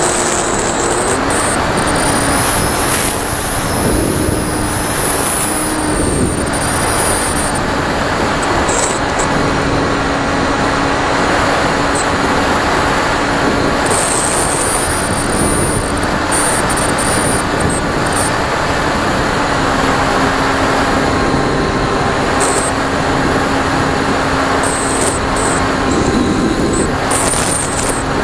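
A model airplane's motor and propeller running steadily in flight, heard from the onboard camera, with wind rushing over it. The motor's hum shifts a little in pitch a few times, and a thin high whine wavers above it.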